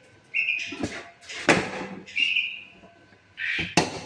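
A bird chirping in short, repeated calls, with a few sharp, noisy clattering sounds between them.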